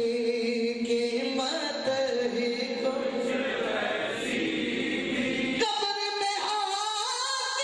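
A man singing a naat, an Urdu devotional song, into a microphone, drawing out long held notes that bend slowly in pitch.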